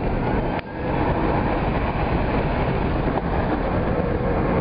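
Steady rush of wind and tyre noise inside an all-electric Tesla Roadster as it accelerates hard under full power.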